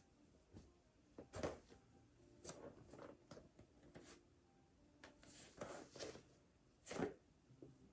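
Soft rustling of clothing and light thumps of a person doing full prostration bows on a mat, in a handful of short bursts, the loudest about a second and a half in and again near the end.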